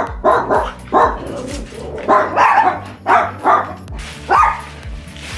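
Small dog barking repeatedly, about eight sharp barks, some in quick pairs. Plastic wrapping rustles near the end.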